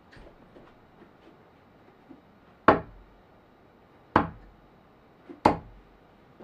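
Three darts hitting a dartboard one after another, about a second and a half apart, each a short sharp thud.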